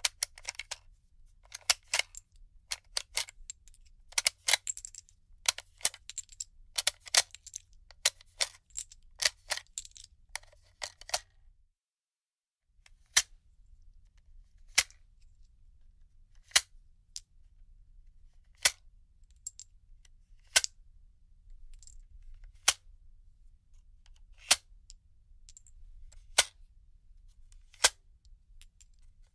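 Handgun handling sounds: magazine loading and the action being worked, making metallic clicks and clacks. A busy run of quick clicks for about eleven seconds, a brief silence, then single sharp clicks about every two seconds.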